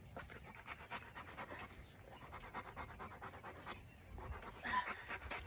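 Rottweiler mother that has just whelped panting quickly and steadily, several short breaths a second, faint.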